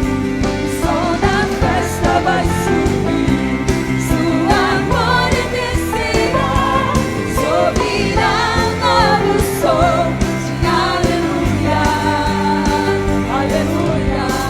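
Gospel praise band playing a worship song, with several voices singing together over sustained chords and a steady drum beat.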